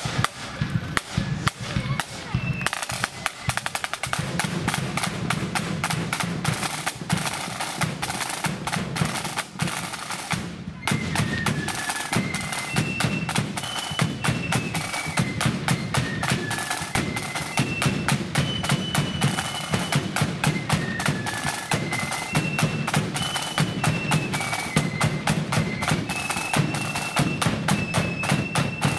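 Marching flute band in the blood-and-thunder style: side drums playing a rapid march beat over a pulsing bass drum, with the flutes taking up the tune about eleven seconds in.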